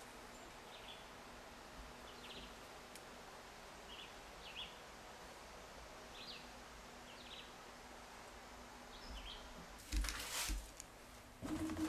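Faint, scattered chirps of small birds over a steady woodland background hiss. Near the end, a few loud scuffing steps and knocks as someone walks onto the floor of an old steel streetcar.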